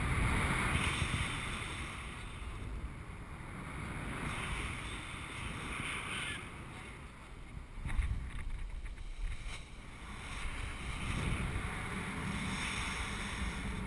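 Rushing air buffeting the microphone of a camera on a paraglider in flight, swelling and easing, with a run of sharp buffeting knocks around the middle and the loudest about eight seconds in.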